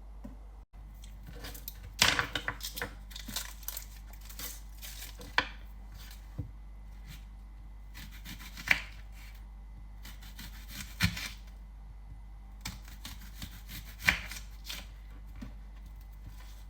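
Kitchen prep of an onion: scattered sharp knocks of a knife on a cutting board with rustling and tearing between them, densest in a flurry about two seconds in, then single knocks every few seconds, over a low steady hum.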